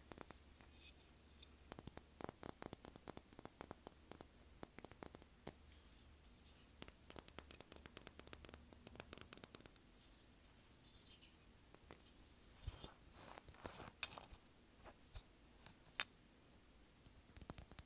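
Fingernails tapping on seashells and small beach trinkets: soft, quick taps in runs separated by short pauses. Some scratching and handling of the objects later on, with one sharper click near the end.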